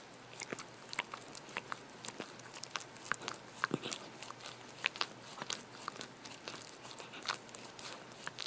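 A hairless munchkin cat licking a glass screen: irregular clicks of its tongue and mouth on the glass, several a second.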